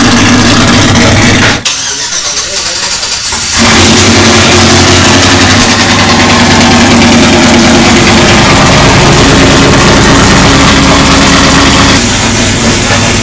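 Freshly cammed pickup truck engine starting about three and a half seconds in after a short quieter gap, then running steadily.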